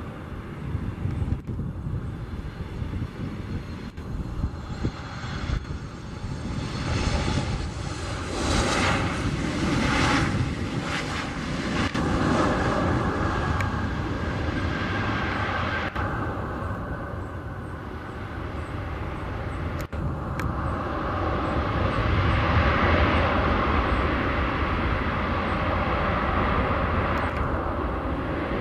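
Boeing 737 MAX 8 jet engines on landing: a steady whine on the approach that slides down in pitch around touchdown, then a broad rising rush of engine noise on the rollout, typical of reverse thrust, loudest a little past two-thirds of the way through.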